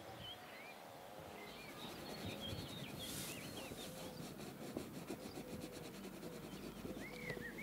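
Pencil scratching on sketchbook paper in short, even strokes, with small birds chirping in the background.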